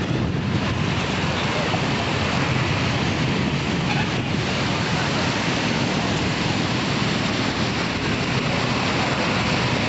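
Swollen river in flood rushing past: a loud, steady rushing noise of fast-flowing floodwater breaking into waves.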